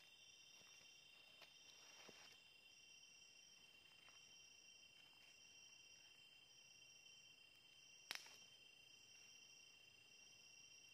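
Faint chorus of night insects: several steady high trills, one of them pulsing on and off about once a second. A few faint snaps, and one sharp crack about eight seconds in.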